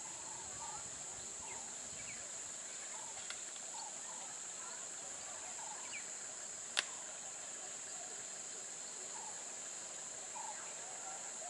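Steady high-pitched insect drone from the surrounding bush, with scattered faint short chirps and one sharp click about seven seconds in.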